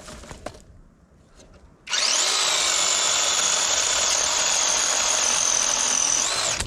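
Seesii 21-volt battery chainsaw spinning up with a rising whine and then running steadily for about four and a half seconds, with the rasp of the chain cutting wood; its pitch climbs again just before it shuts off near the end. A few light handling clicks come before it starts.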